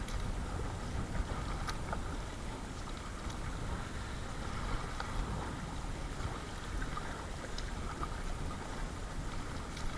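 Choppy water splashing around a Perception Sound 10.5 kayak being paddled through whitecaps in strong wind, with a steady low wind rumble and many small scattered splashes and drips.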